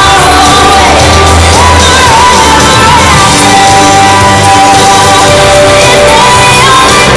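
Loud pop music with a sung melody over a steady bass line.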